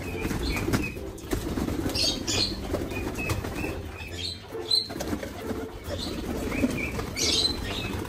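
Domestic pigeons flapping their wings in repeated, irregular flurries as they jostle and take off around a grain feeder.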